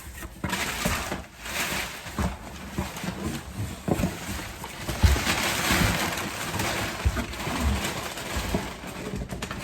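A large cardboard shipping box being forced open by hand: rustling and tearing of cardboard and packing, with scattered knocks.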